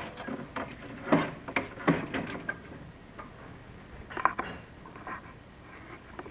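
Irregular knocks and scrapes from a chimney inspection camera being lowered down a masonry flue, with a few sharper bumps about a second, two seconds and four seconds in.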